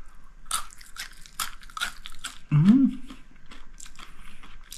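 Crispy fried chanterelle mushroom chicharon being chewed right at the microphone: a run of sharp crunches. A brief hummed "mm" from the eater comes about two and a half seconds in.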